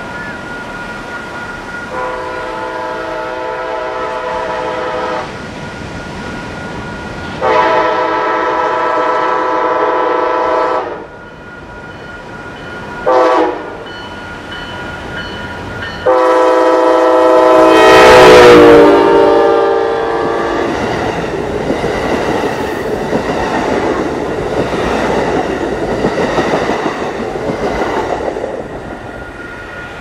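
Passenger locomotive's air horn sounding the grade-crossing signal: two long blasts, a short one, then a final long blast that drops in pitch as the locomotive passes. After that the train rushes and clatters past.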